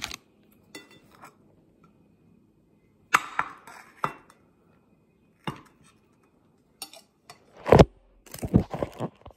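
A few separate knocks, clinks and rustles from a plate and a food wrapper being handled, the loudest knock near the end.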